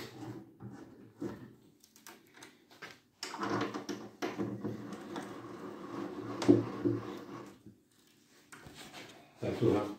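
Confirmat screws being driven by hand with a hex key into a pine bookcase's side panel and shelf: creaking and rubbing of metal turning in wood. Short strokes come first, then a longer, louder spell of turning from about three seconds in, with a sharp peak partway through.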